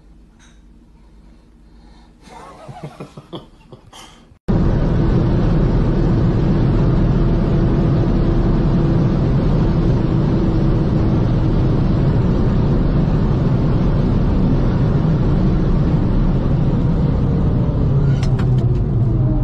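Loud, steady engine and road noise heard from inside a car's cabin while driving at speed. It starts suddenly about four seconds in, after a few seconds of quiet with some short, faint sounds, and a few sharp clicks come near the end.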